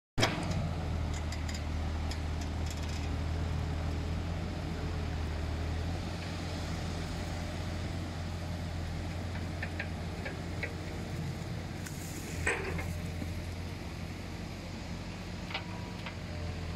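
Beach ambience: a steady low rumble with the wash of small waves on the sand, a few faint ticks, and a short rush of noise about twelve seconds in.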